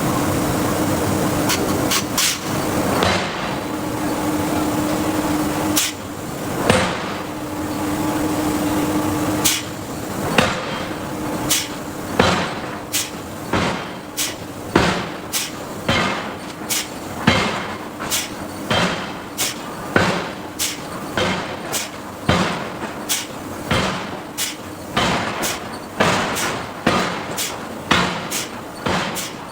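Giant hydraulic forging hammer striking steel: a few spaced blows over a steady hum, then about ten seconds in a regular run of blows, roughly three every two seconds.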